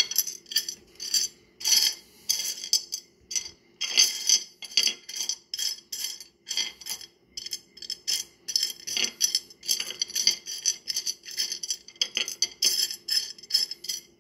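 Pieces of wet rough opal clinking and clattering against one another as fingers stir through the pile: a dense run of sharp, irregular clicks, several a second.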